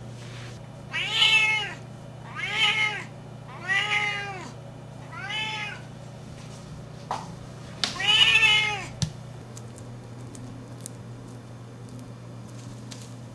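Siamese–Himalayan cross cat meowing loudly: five long meows, each rising then falling in pitch, four about a second and a half apart and the fifth after a short pause, followed by a sharp click.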